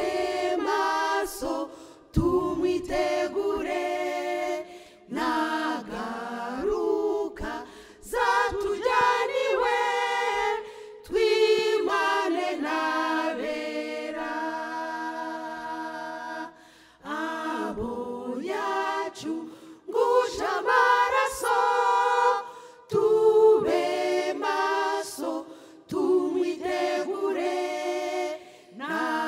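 Small choir of women singing a cappella in phrases, with short pauses between them and a long held note about halfway through.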